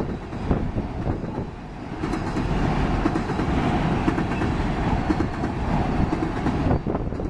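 Freight-train tank cars rolling past, their steel wheels clacking over the rail joints in a steady rumble. The rumble grows louder about two seconds in and eases off near the end.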